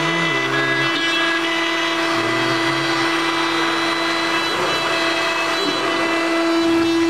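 Wood CNC router's motors running with a steady whine and hum. Over the first three seconds there are a few short low tones that step up and down in pitch.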